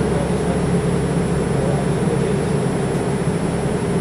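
MBTA Red Line subway car running, heard from inside the car: a steady rumble with a low hum.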